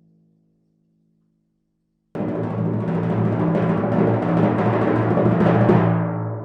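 Timpani roll: after about two seconds of silence it starts suddenly, a fast run of strokes on a pitched kettledrum that grows a little louder and stops near the end, leaving the drum ringing.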